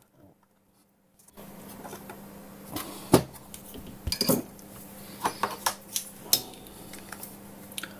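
Small metal tools clinking and tapping on a workbench during soldering work: a handful of sharp clicks and clinks, the loudest about three seconds in, over a low steady hum that starts after a second or so of near silence.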